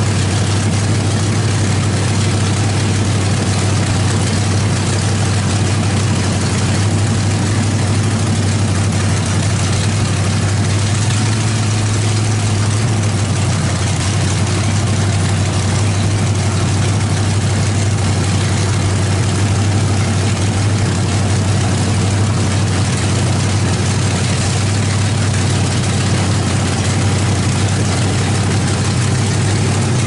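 Chevrolet 350 small-block V8 running at a steady speed with its valve covers off, loud and unchanging. It is a freshly built engine on its break-in run, with the rocker arms being adjusted while it runs.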